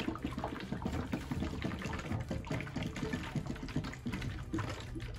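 Water glugging and gurgling as it drains from an upturned plastic Smart Water bottle through a bottle-to-bottle coupler into the bottle below, in quick irregular glugs as air bubbles up into the top bottle.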